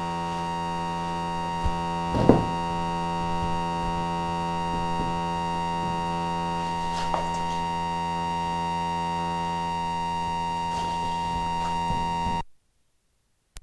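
Steady electronic buzz made of several fixed tones, the sign of a glitching lapel microphone, with a few faint knocks under it. Near the end the audio cuts off suddenly into dead silence: a mic dropout.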